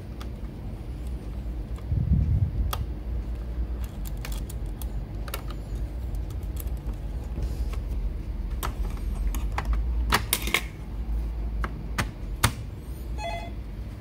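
Scattered sharp clicks and light taps of a small screwdriver and plastic parts being handled on a laptop's underside while a drive-bay screw is fastened. There is a low thump about two seconds in and a cluster of clicks around ten seconds, over a steady low rumble.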